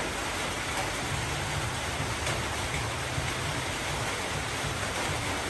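A steady, even rushing hiss with no distinct events.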